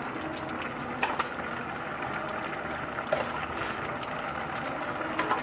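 Paella broth simmering in a wide steel pan with a steady hiss, broken three times, about two seconds apart, by light clacks of New Zealand green-lipped mussel shells being lifted from a steel bowl and set into the pan.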